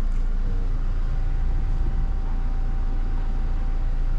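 Steady low rumble of a car's engine idling. A faint steady whine joins about a second in.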